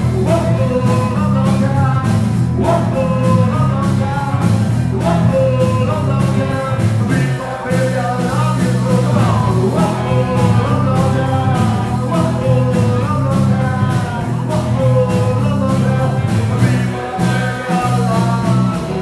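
Live rock and roll band playing: electric guitars, bass and a drum kit, with a melody line weaving over a steady beat.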